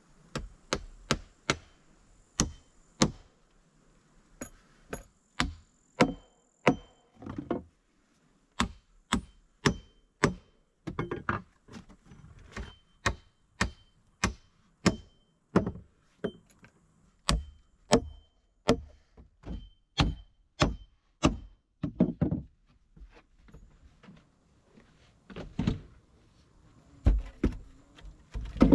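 Hammer nailing wooden planks: a long run of sharp knocks, about one to two a second, with a short pause a little before the end.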